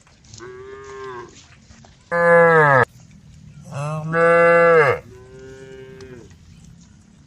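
Cows mooing: four long calls. The second and third are loud and close, and each drops in pitch at the end. The first and last are fainter and higher-pitched.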